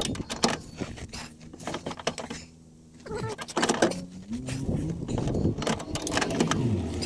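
Ratchet wrench clicking and metal clinking as a seized, rusted rear-beam mounting bolt on a Renault Twingo is worked loose, with a low wavering creak through the second half.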